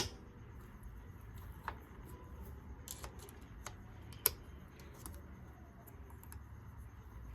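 Small metal engine parts being handled during kickstarter assembly: scattered light clicks and taps, with a sharp click at the very start and another about four seconds in, over a faint low hum.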